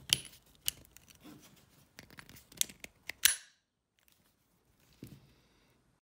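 Clicks and clacks of a kite bar's i3 quick release being reconnected: the chicken loop and its plastic and stainless-steel parts knocking together several times, with the loudest snap just over three seconds in.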